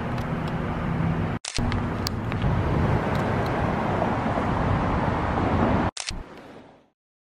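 City street traffic ambience: a steady wash of road noise with a car engine hum, breaking off abruptly twice and fading to silence near the end.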